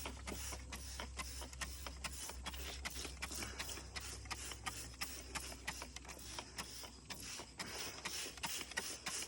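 Hand trigger spray bottle being pumped rapidly, a quick run of short hissing spritzes, about three or four a second. A low hum sits underneath and dies away near the end.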